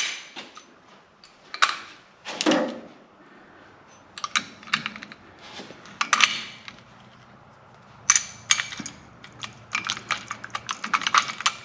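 Hard parts being handled: scattered clicks and clinks, then a quick, dense run of clicking in the last few seconds.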